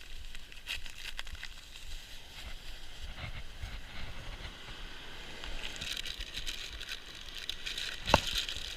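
Rustling and light clicks of gear or packaging being handled, growing louder in the second half, over a low wind rumble on the microphone, with one sharp click near the end.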